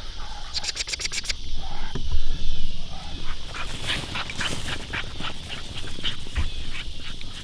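Dog and coyote yipping and barking: a series of short, sharp calls through the second half. A quick run of clicks comes about a second in.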